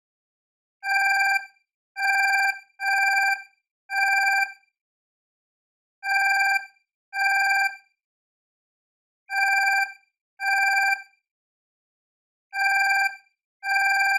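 Alarm clock ringing in short bursts of about two-thirds of a second each. There are four rings close together, then rings in pairs with gaps of about a second and a half between the pairs.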